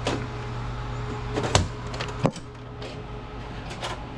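A few sharp knocks and clicks of a GPU server chassis's parts being handled, the loudest about a second and a half in, over a steady low hum.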